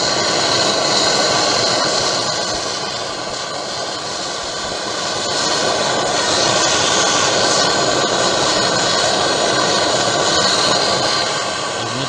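Hand-held gas brazing torch burning with a loud, steady rushing hiss as its flame heats brazing rod onto a leaking copper suction pipe of a window air conditioner.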